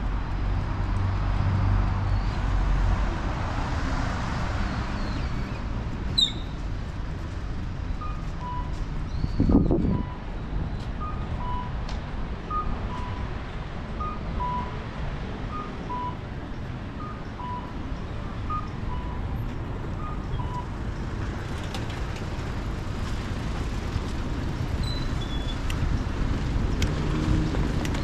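Street traffic running steadily, with one louder vehicle passing about nine seconds in. Through the middle of the stretch, for about thirteen seconds, an electronic beep repeats in two alternating pitches, a higher note then a lower one.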